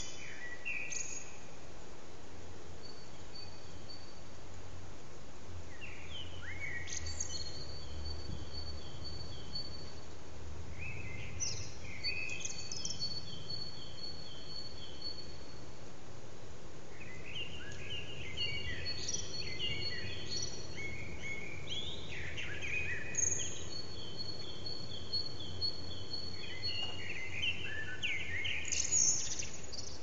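Common blackbird singing its dawn song: warbled phrases a few seconds long, repeated several times with pauses between them. A low steady hum runs underneath.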